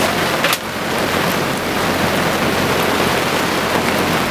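Heavy squall rain pouring down on a catamaran at anchor, a steady dense hiss, with one brief sharp tap about half a second in.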